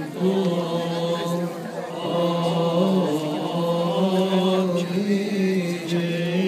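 Coptic Orthodox congregation and deacons chanting a liturgical hymn in unison, with long drawn-out notes that slide slowly from pitch to pitch.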